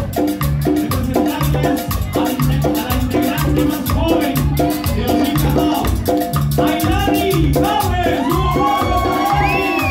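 Marimba band playing live with a drum kit: wooden marimbas ring out a melody over a steady bass pulse about twice a second, while snare, cymbal and cowbell keep a dance beat.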